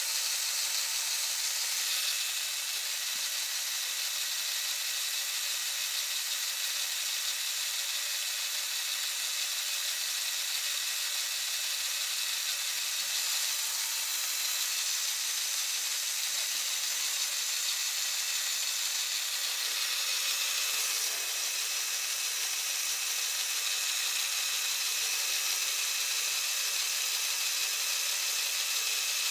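LEGO Technic Unimog's Power Functions M motor whirring steadily as it drives the motorized winch through its gears, paying out the winch string.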